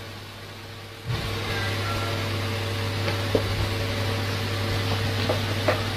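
A steady low hum, with a few level tones in it, that jumps louder about a second in. A few light clicks fall in the second half.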